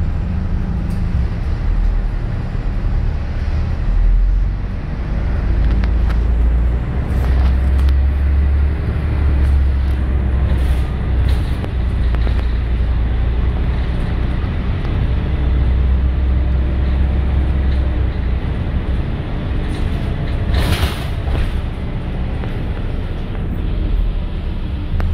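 Scania L113CRL low-floor city bus running, with a steady low engine rumble that swells and eases. A brief hiss comes about twenty seconds in.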